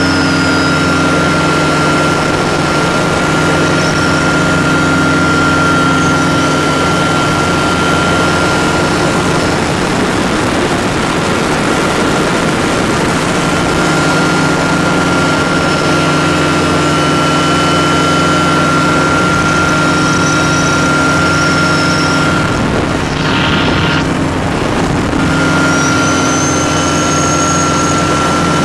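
Ultralight aircraft's engine and propeller running steadily in cruise, heard from on board, with a steady high whine over the drone.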